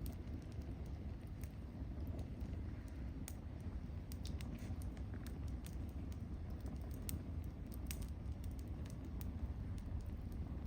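Firewood burning, crackling and ticking in irregular sharp snaps, several close together now and then, over a steady low rumble.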